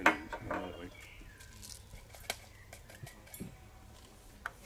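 Tableware knocking on a table: one sharp knock at the very start, then a few small clicks over quiet outdoor air with faint bird chirps.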